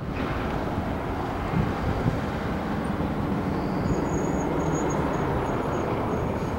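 Freight train moving slowly: the steady rumble of a diesel locomotive's engine and rolling freight cars. A faint, thin high-pitched tone comes and goes in short pulses from about four seconds in.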